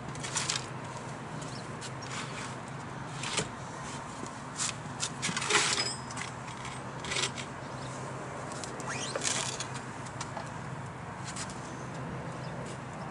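Irregular scrapes, clatters and rustles of hands working around a motorcycle's main stand, as a wooden board is set under it on paving stones, over a steady low background hum. The longest scrape comes about halfway through.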